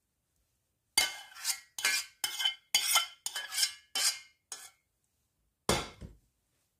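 Metal spoon scraping thick cherry glaze out of a steel saucepan. It starts about a second in as a quick run of about seven scrapes, then there is one more scrape near the end.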